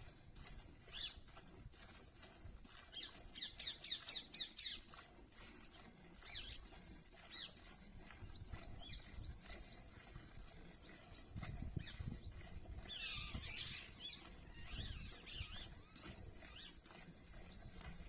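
Milk squirting into a pail as a cow is milked by hand: short hissing jets in quick rhythm, fastest a few seconds in, with another run of squirts near the middle.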